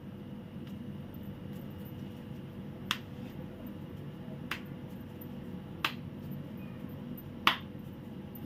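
Hands shaping a ball of roti dough between the palms, giving four short, sharp slaps about a second and a half apart over a steady low background hum.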